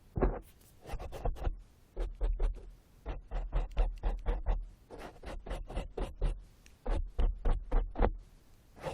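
Ear-cleaning tool scratching and scraping close against the microphone, in quick clusters of short strokes separated by brief pauses, with a low rumble from contact on each stroke.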